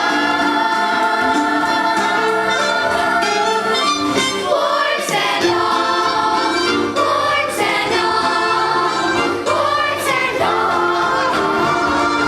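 Music with a choir singing long held notes that change chord a few times.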